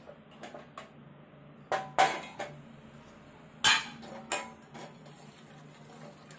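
Metal kitchenware clanking: an aluminium pot, a steel bowl and a wire-mesh strainer knocking against each other and the steel stovetop as they are set down and handled. A few sharp clanks, the loudest about two seconds in and just under four seconds in.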